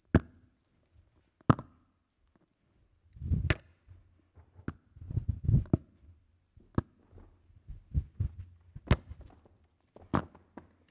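Irregular clicks, knocks and low thumps of a folder being opened and handled at a lectern close to its microphone, with a few sharp clicks standing out.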